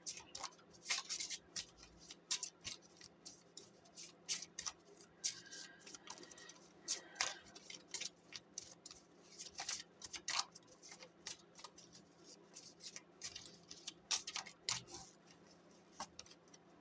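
A deck of Lenormand cards being shuffled and handled by hand: a run of irregular light clicks and card slaps, several a second.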